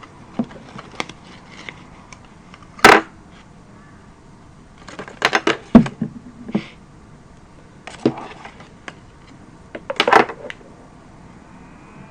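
Irregular plastic clicks, taps and rustles from a Megaminx puzzle and its packaging being handled. A sharp knock comes about three seconds in, and bunches of clicks come around the middle and again near the end.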